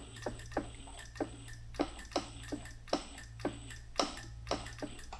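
Bead roller turning as a steel panel's flange is fed through its dies, giving a run of sharp, regular ticks about three a second that stop at the end, over a steady low hum.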